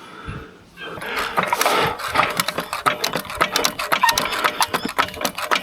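Hand ratchet wrench clicking rapidly as a bolt or nut is wound off. The clicking starts about a second in.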